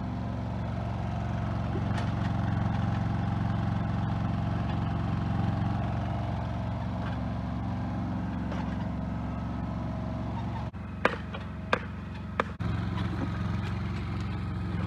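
Yanmar mini excavator's diesel engine running steadily. Near the end the engine sound drops away for about two seconds, during which there are three sharp knocks, then it comes back.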